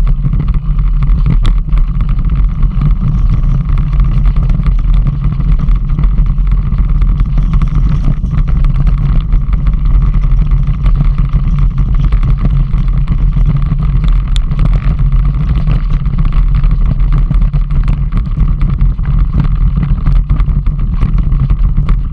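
A vehicle engine running steadily under load, with wind rumbling on the microphone.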